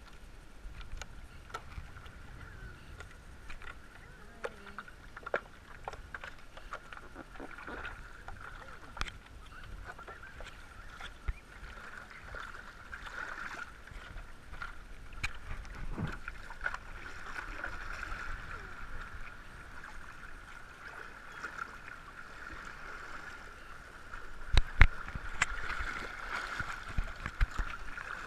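Water lapping and splashing against a stand-up paddleboard as it is paddled, with small ticks and splashes throughout and a faint steady hum underneath. Near the end come a few loud sharp knocks.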